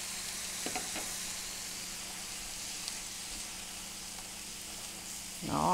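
Food sizzling steadily in a hot pan, a constant hiss, with a few faint clicks about a second in.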